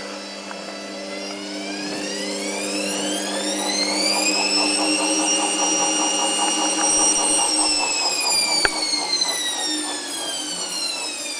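Indesit WIE127 washing machine running, its motor whine rising in pitch over a few seconds, holding, then slowly winding down, over a steady hum that stops about two-thirds of the way in; one sharp click near the end. The machine will not drain: its pump is not pumping.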